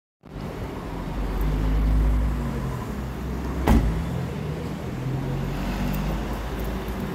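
A motor vehicle's engine running close by in street traffic, swelling and easing, with one sharp knock a little after halfway.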